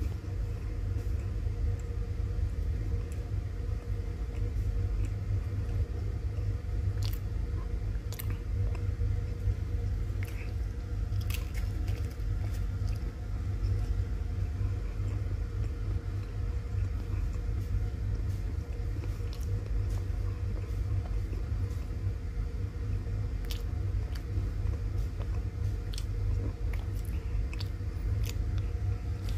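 Close-up chewing and biting of crisp fried pastry snacks (samosa and kachori), with a few sharp crunches scattered through, over a steady low hum.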